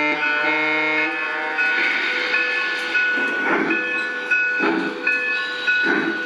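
Lionel O-gauge Southern Pacific Daylight steam locomotive's onboard sound system blowing its chord whistle for about a second and a half, then slow steam chuffs about a second apart as it rolls along.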